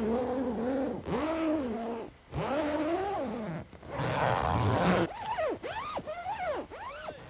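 A series of drawn-out yowling calls that waver up and down in pitch, separated by short breaks, ending in about four quick swooping calls.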